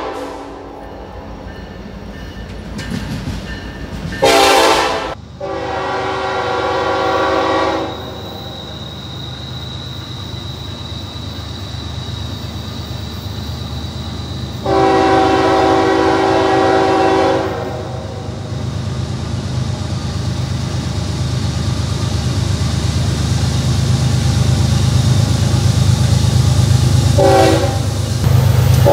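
Diesel freight locomotive's multi-chime air horn blowing the grade-crossing signal, two long blasts, a short one and a long one, as the train approaches, its engine rumble growing louder over the second half. A horn blast cuts off just at the start, and there is a brief loud noisy burst about four seconds in.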